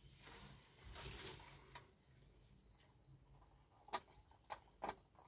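Faint handling of a plastic LED lamp fitting: soft rustling, then a few small sharp clicks near the end as parts are snapped back into place.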